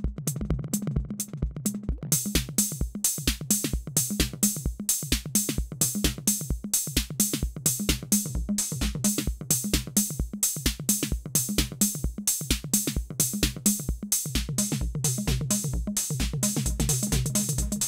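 Roland TR-06 Drumatix drum machine playing a steady beat: a regular kick drum under fast hi-hats, with the hi-hats filling in densely about two seconds in.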